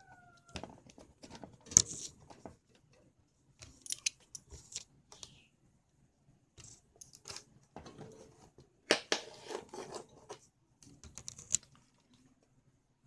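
Handling noise: scattered rustles, scrapes and clicks, loudest around the middle, with near quiet between them.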